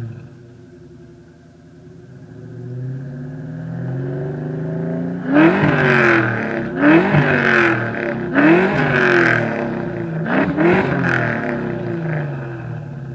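Ford Mustang 5.0 V8 through a loud aftermarket exhaust, running near idle and then revved sharply four times in quick succession, a little under halfway through to near the end. Each rev climbs and drops back quickly before the engine settles toward idle.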